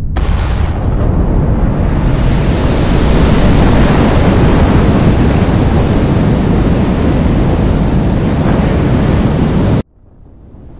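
A massive explosion's blast: a loud, continuous rush of noise and rumble that swells over the first few seconds, holds, then cuts off abruptly near the end. A new low rumble starts to rise just after the cut.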